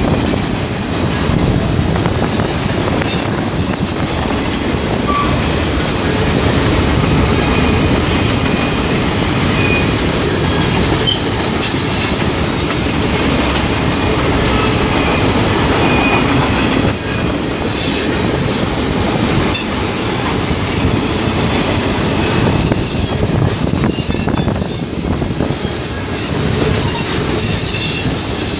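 Freight train of tank cars, boxcars and an autorack passing close at speed: a steady rumble and clatter of steel wheels on rail, with brief high wheel squeals now and then.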